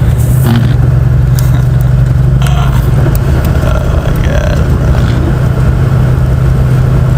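Steady low drone of a car driving, engine and road noise heard from inside the cabin, with a few faint voices in the background.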